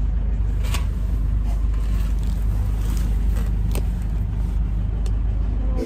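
Taxi engine running, a steady low rumble heard from inside the cabin, with a few faint knocks.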